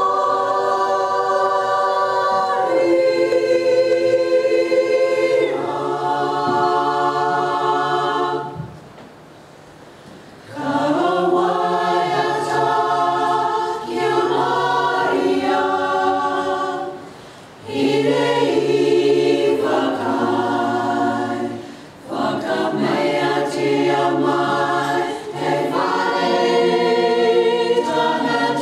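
Mixed-voice community choir singing in phrases separated by short breaks; the longest gap, about two seconds, comes about eight seconds in.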